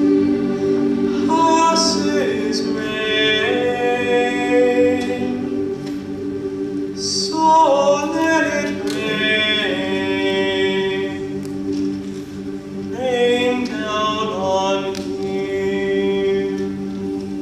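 A large mixed choir singing a slow, sustained choral piece, with the low voices holding steady chords under moving upper parts.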